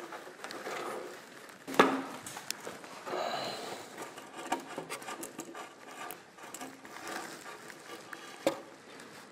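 Hand work with a steel wire cable and a large crimping pliers: a sharp metallic click about two seconds in and a smaller one near the end, with faint rustling and handling between.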